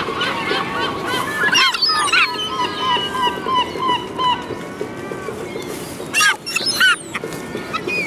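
Young gulls calling: a run of short, repeated calls, with louder calls about two seconds in and again about six and seven seconds in.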